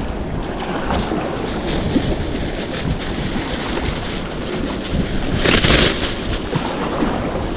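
Wind buffeting the microphone over the wash of sea waves on the shore, with a brief louder hiss about five and a half seconds in.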